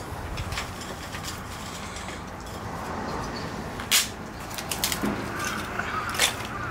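A few sharp knocks and clicks, the loudest about four seconds in, over a steady background hum.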